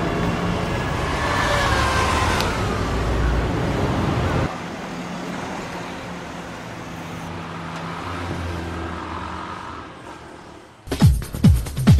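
Motor vehicles passing on a road: a loud engine and tyre rumble whose pitch falls as a car goes by about two seconds in. It cuts abruptly to a quieter engine hum, and electronic dance music with a heavy beat starts near the end.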